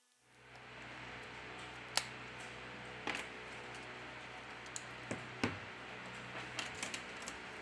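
Small sharp clicks and taps of tools and parts on a smartphone during disassembly, as its middle frame is being removed, over a steady low hiss. The clicks come singly about two, three and five seconds in, then a quick cluster near the end.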